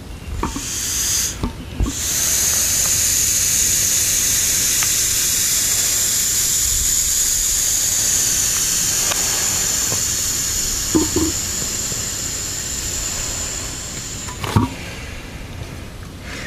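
Compressed air hissing out of the rubber bladder of a reverse osmosis storage tank as it is pressed down and deflated. The hiss is steady and high-pitched, with a brief break near the start, and stops about fourteen seconds in amid a few handling knocks.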